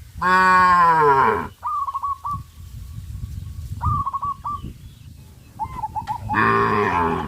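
A cow mooing twice: a long call that falls in pitch over about a second and a half, then a shorter call near the end. Birds chirp in short repeated notes between the moos.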